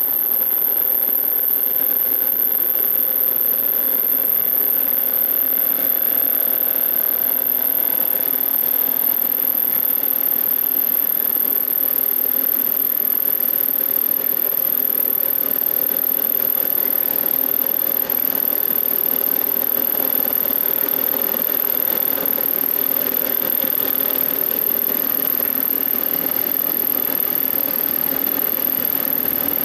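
Millport Model 2S milling machine with a step-pulley head and two-speed three-phase motor, running steadily while a face mill takes a power-fed cut across a metal block. A constant high-pitched whine sits over the machine noise.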